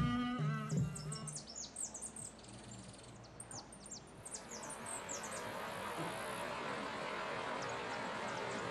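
Rapid high chirping for a few seconds, then from about four and a half seconds in the steady rush of a rocky mountain stream cascading over boulders. The tail of a music track ends in the first second.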